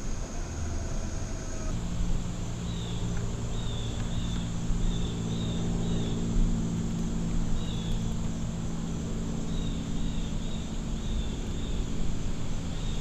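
A steady low mechanical hum with short high chirps repeating through it. The background changes abruptly about two seconds in, when the hum starts.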